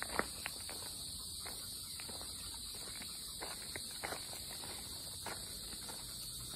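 Steady, high-pitched chorus of summer insects buzzing in woodland, with scattered light clicks and ticks over it.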